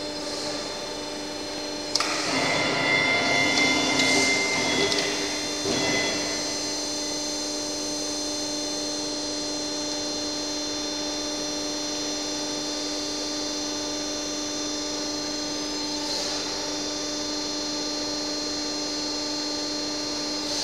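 Trumpf Trumatic 120 Rotation CNC punch press running with no punching, giving a steady hum of several pitches. From about two to six seconds in, a louder, noisier stretch with a high steady whine rises over the hum, then the hum carries on alone.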